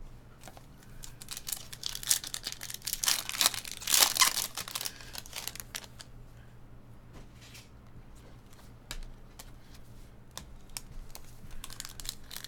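A trading-card pack's foil wrapper being torn open and crinkled by hand, loudest about three to four seconds in. Then quieter handling of the chrome cards, with a few light clicks.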